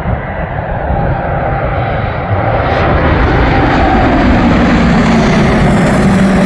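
Landing airplane approaching and passing close by: a steady engine rumble and rush that grows louder over the first few seconds, then holds loud.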